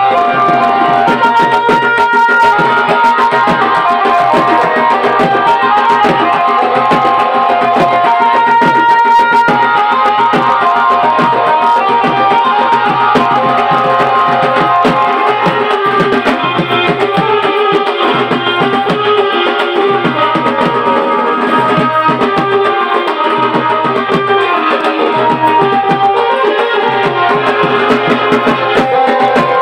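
Loud dance music with a steady drum beat under a melody line.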